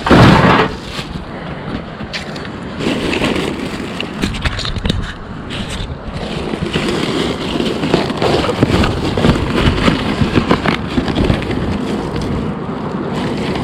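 Rustling, crackling and clattering of curbside trash being handled and sorted, opening with a loud thump.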